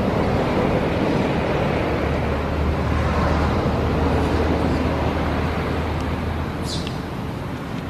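Steady outdoor background rumble and hiss with a low hum beneath it, and one short high squeak that falls in pitch near the end.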